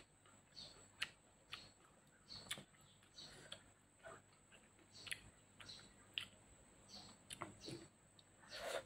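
Close-miked mouth sounds of a person chewing food: faint wet clicks and smacks at irregular intervals, about one a second. A louder bite comes near the end as a mouthful of leafy greens is taken.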